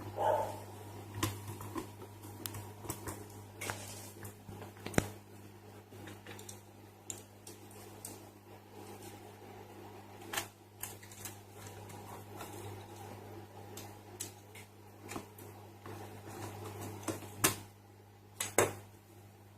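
Irregular light clicks and clatter of small hard objects, over a steady low electrical hum.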